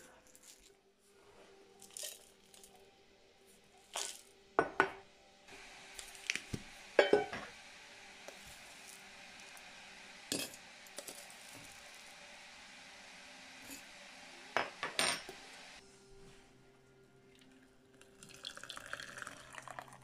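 Clinks and knocks of tea-making: a metal tea tin, its lid, a mug and a metal strainer being handled and set down, several sharp strikes spread out, over a faint steady hiss. Near the end, water is poured from a stainless kettle into the strainer in the mug.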